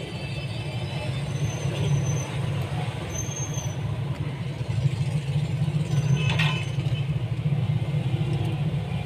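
Steady low rumble of road traffic, with a short higher-pitched tone, like a vehicle horn, about six seconds in.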